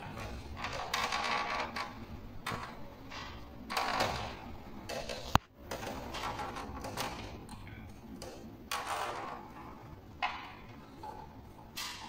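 Intermittent handling noises from work on the air-conditioner's blower fan: short scrapes and clinks, with one sharp click about five seconds in.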